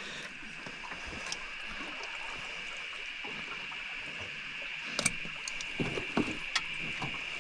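Water sloshing and splashing around a small boat as a hooked trout cod is worked toward the landing net, with several sharp knocks from about five seconds in. A steady high-pitched hum runs underneath throughout.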